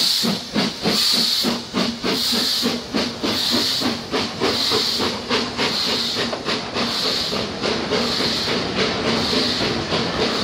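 BR Standard Class 4MT 4-6-0 steam locomotive No 75078 passing close by under steam: loud, rhythmic exhaust beats and hissing steam, followed by its coaches rolling past on the rails.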